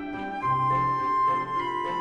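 Instrumental background music: sustained melodic notes over lower held notes, with a long high note entering about half a second in.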